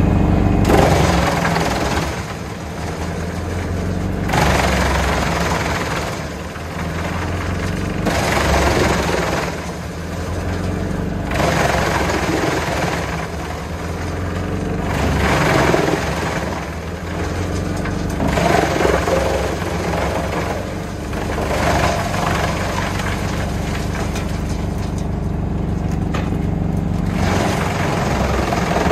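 Valtra T190 tractor driving a Junkkari HJ500 wood chipper at steady speed, with a loud, noisy chipping and grinding that comes and goes in stretches of a second to a few seconds as crane-fed logs are chewed into chips.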